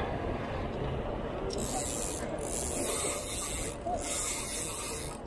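Spinning reel being cranked on a lure retrieve: a hissing whir that starts about a second and a half in and breaks off briefly a few times. A steady low rumble runs underneath.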